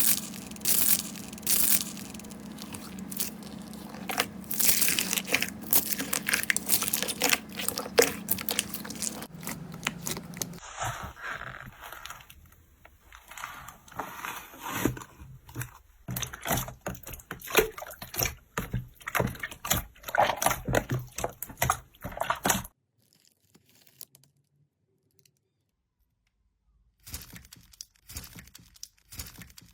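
Slime being squeezed and pressed by hand, giving a dense run of crackling, crunching clicks. The texture changes about a third of the way in. The sound stops abruptly about three quarters through, and after a few seconds of near silence a short burst of crackling comes near the end.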